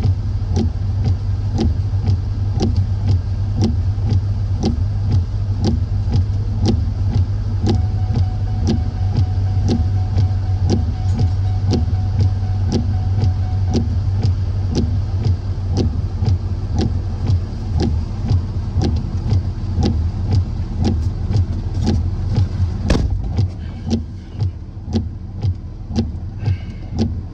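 Steady low engine and road drone heard inside a moving box truck's cab, with a regular ticking about twice a second over it. The drone drops off a few seconds before the end.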